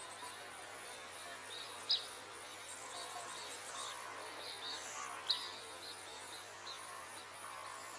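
Outdoor ambience of birds and insects: a steady, faintly pulsing high insect trill runs throughout, with short high bird chirps scattered over it, the loudest about two seconds in and again just past five seconds.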